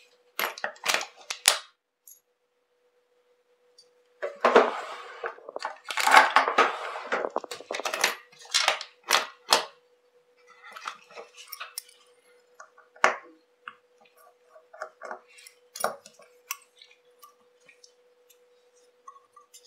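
Small metal tools and watch parts clicking, clinking and scraping as a chronograph movement is taken apart. A quick run of sharp clicks comes near the start, then a few seconds of scraping and rustling, then scattered light ticks.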